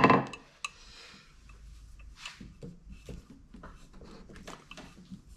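A sharp knock at the start, then faint scattered clicks and rustling of a hand tool being worked against a tight fastener on a chainsaw's housing.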